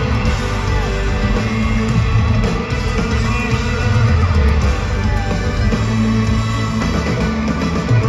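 Live country band playing at full volume in an arena: guitars over bass and drums.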